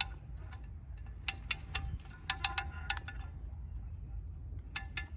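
Metal ratchet of a hand winch (come-along) being worked to tension the wire line pulling over a dead pine tree: short groups of sharp, ringing clicks, about a second in, again around two to three seconds in, and near the end, over a low steady rumble.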